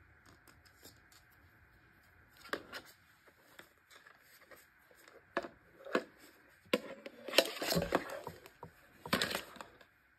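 Hard plastic parts of a tumbler spinner being handled and fitted together: scattered clicks and knocks, busiest about seven to nine seconds in.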